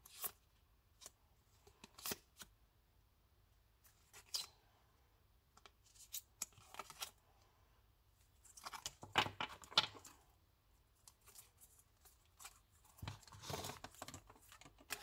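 Packaging being handled and opened by hand: faint scattered clicks and rustles, with longer bursts of tearing or rustling about nine seconds in and again near the end.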